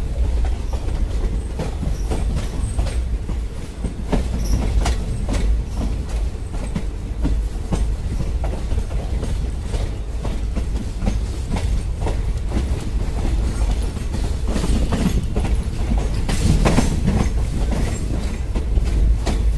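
Moving passenger train heard from an open coach doorway: a steady low rumble of the wheels and bogies, with irregular clickety-clack as the wheels run over rail joints and points. The clatter grows heavier for a moment near the end.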